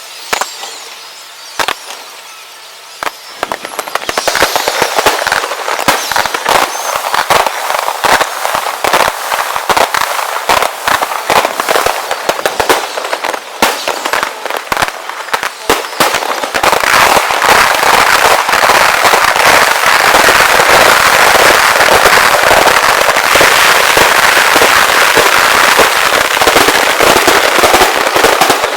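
Fireworks display going off: sharp bangs and crackles in quick succession, sparse at first and growing denser until, about halfway through, they run together into continuous crackling.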